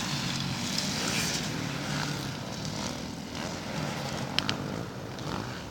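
Motorcycle engine running, its pitch wavering up and down, with a sharp click about four seconds in.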